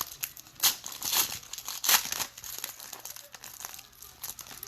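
Crinkling and tearing of trading-card pack wrappers, with rustling of cards being handled. A few sharp, louder crinkles come in the first two seconds, then quieter rustling.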